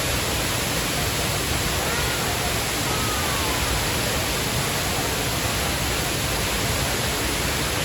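Waterfall's falling water rushing in a steady, dense, unbroken wash of noise.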